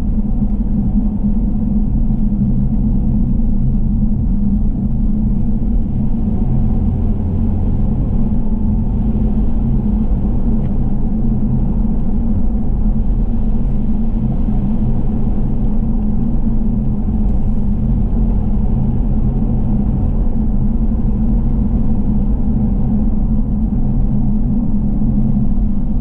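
A car driving in the rain: a steady, low road and engine rumble that holds unchanged throughout.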